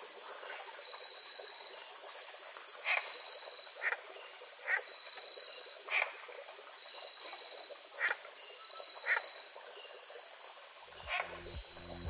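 Night chorus of frogs giving short calls about once a second over a steady high insect trill. Music comes in near the end.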